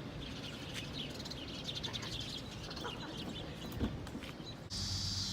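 Birds chirping in short calls over outdoor background noise. Near the end the sound cuts abruptly to a steady, high-pitched buzz.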